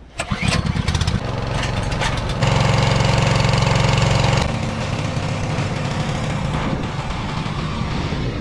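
Small petrol engine of a portable water pump starting up and then running steadily at working speed while pumping, louder for a couple of seconds in the middle.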